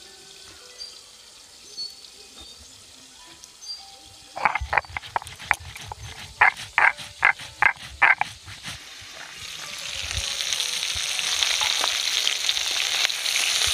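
A stone roller worked back and forth on a flat grinding stone (shil-nora), grinding cumin and chillies into paste. After about four seconds of quiet it gives a run of short scraping strokes, about three a second, lasting some four seconds. Then oil sizzles steadily as boal fish steaks fry in a kadai, getting louder.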